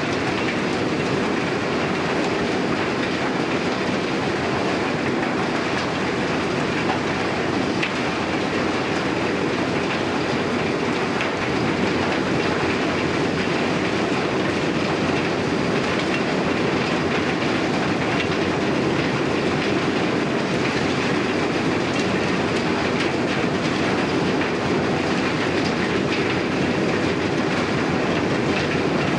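Eidal Model 100 vertical grinder running steadily while grinding wood, its rotor belt-driven by a 100 hp electric motor. It makes a continuous dense clatter of many small ticks as chips are thrown out of the discharge chute.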